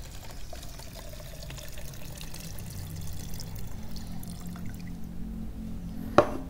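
Paint thinner being poured from a plastic measuring jug into white epoxy primer in another plastic jug, a steady trickling pour. A single sharp knock near the end.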